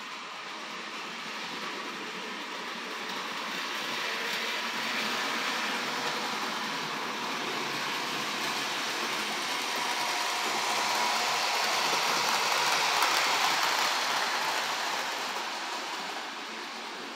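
Bachmann HO-scale model diesel locomotive running along the layout track: a steady running noise from its motor and wheels that grows louder toward the middle as it comes closer, then fades near the end.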